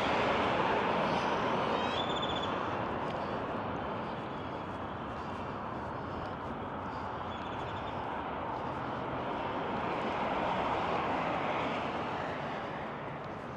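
Road traffic going by on a busy street: a steady rush of tyres and engines that fades over the first few seconds, then swells again as another vehicle passes about ten seconds in.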